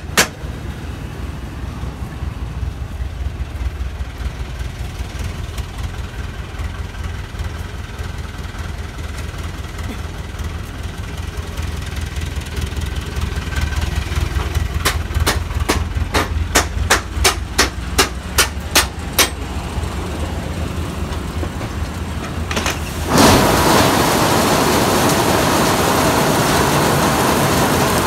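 Tractor engine running steadily. A little past the middle come about ten sharp hammer blows on metal, knocking the trailer's gate loose. Near the end the tipped trailer lets go and a mass of olives pours into a steel hopper with a loud, steady rushing.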